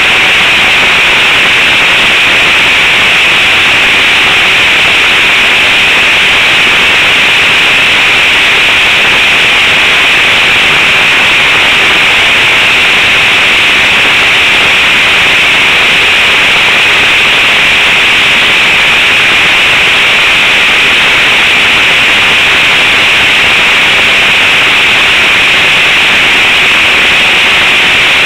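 Model trainer airplane's engine and propeller running at a steady speed, heard from a camera mounted on the plane, mixed with wind rush into a very loud, even hiss with a faint steady hum beneath it.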